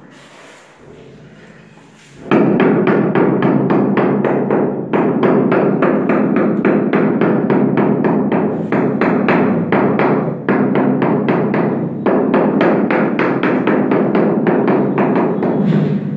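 Rapid knocking of a hammer's wooden handle end on a large vitrified floor tile, tapping it down to bed it into the mortar beneath. The knocks start about two seconds in and run at roughly five a second, with a few brief pauses.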